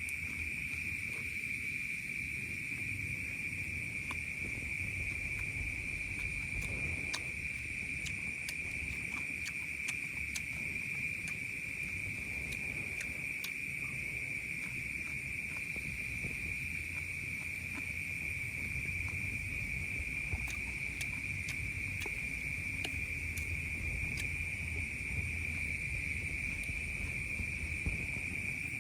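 A night insect chorus, crickets chirring in one steady, unbroken high trill, with scattered faint clicks and a low rumble beneath.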